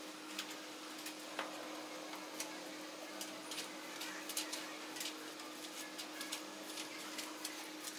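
Marker pen tip drawing on a whiteboard: faint, irregular little ticks and scratches, several a second, over a steady low room hum.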